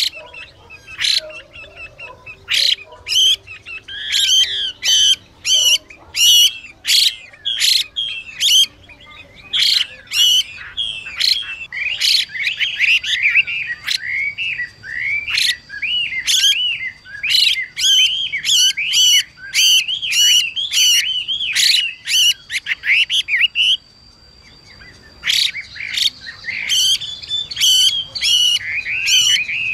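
Chinese hwamei calling and singing: a quick stream of sharp, clipped notes mixed with fast, varied warbling. It breaks off briefly about 24 seconds in, then picks up again.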